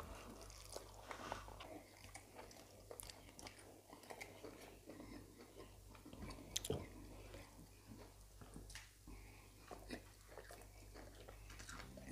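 Faint close chewing and wet mouth smacks of people eating rice and stew with their hands, in many short scattered clicks, over a steady low hum.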